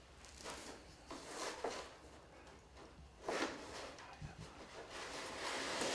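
Light, intermittent rustling and scraping as things are handled on the layout benchwork, in several short bursts.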